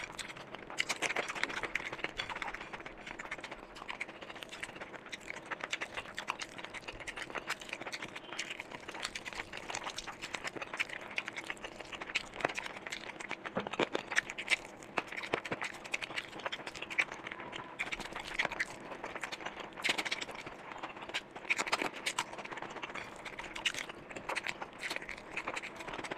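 Close-miked ASMR eating sounds: a steady stream of wet chewing, lip smacks and clicks as rice and curry are eaten by hand, with the squish of fingers mixing the rice.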